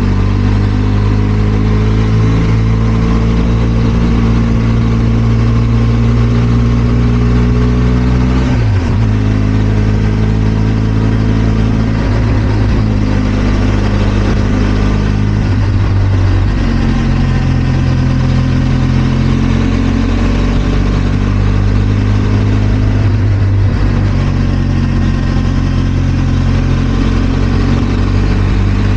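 Benelli TRK 502 X motorcycle's parallel-twin engine running, loud and steady, with a few brief breaks where its pitch drops and changes, as at gear changes.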